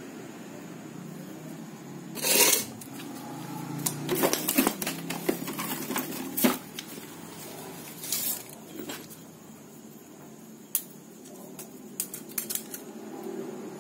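Metal clinks, clatters and scrapes of a steel concrete hole saw and its extension shaft being handled and set down on a concrete floor, with a brief louder scrape about two seconds in and scattered sharp clicks after it. A steady low hum runs underneath.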